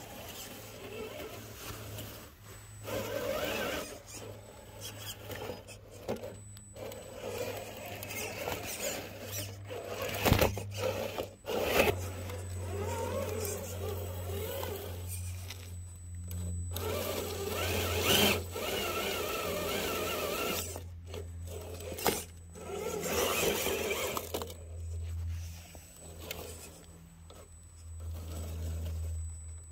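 Scale RC rock-crawler truck's electric motor and geared drivetrain whirring in stop-and-go throttle stretches as it climbs a rock pile. Its tires scrape over the stones, with a couple of sharp knocks about ten seconds in.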